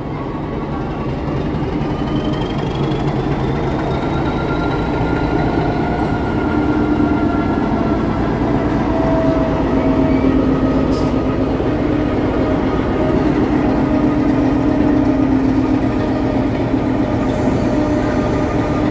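Metre-gauge diesel locomotive's engine running with a steady low rumble and held humming tones, growing louder as it comes alongside, then holding steady while it stands. A few thin rising squeals sound in the first seconds, a sharp click about halfway through, and a hiss near the end.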